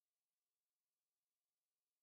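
Silence: the sound track is empty.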